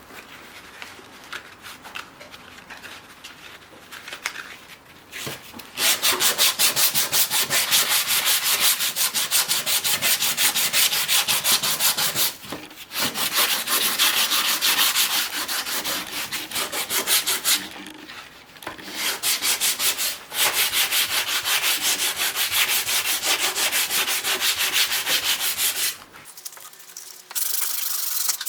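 Sandpaper rubbed by hand in fast, even back-and-forth strokes. It is soft for the first few seconds, then loud in long runs broken by short pauses about halfway, about two-thirds of the way in and near the end.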